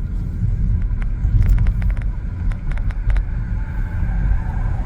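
Steady low road and engine rumble inside a moving car's cabin at low city speed, with a few faint clicks about a second and a half in and again around three seconds.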